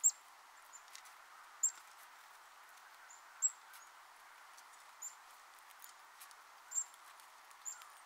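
Small songbirds giving short, very high, thin call notes with a quick downward slur, about six of them a second or two apart. Under them is a faint steady hiss.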